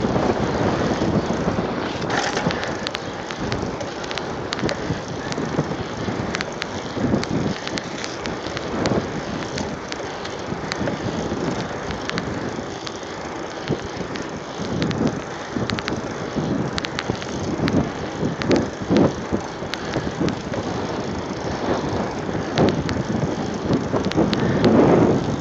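Mountain bike rolling along an asphalt road, with a steady run of short rattling clicks from the bike and gusty wind rushing over the phone's microphone.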